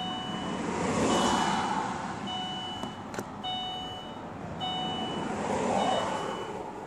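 A car's door-open warning chime beeping steadily, a high tone about once a second, over a rushing noise that swells and fades twice.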